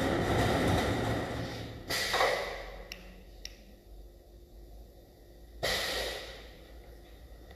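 Pneumatic brake on a stone bridge saw's turntable hissing in bursts of released air as the table is freed and turned by hand. There is a long hiss at the start, a shorter one about two seconds in, and a sudden one near six seconds in that fades over a second or so, with a couple of faint clicks between.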